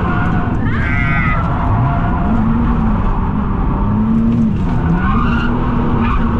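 Drift car's engine running hard at high revs while the tyres skid and squeal, under heavy road and tyre noise; the engine note drops and climbs back twice, about two seconds in and again near the five-second mark.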